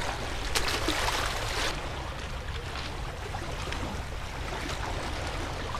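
Wind rumbling on the camera's microphone over seawater washing against shoreline rocks. About half a second in, a louder rush of hiss lasts for about a second.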